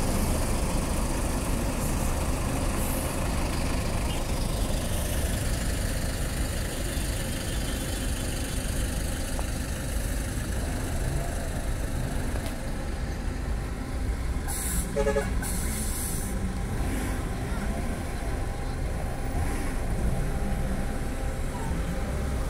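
City bus diesel engines running as the buses move off and approach, a steady low rumble throughout. About fifteen seconds in there are two short bursts of hiss.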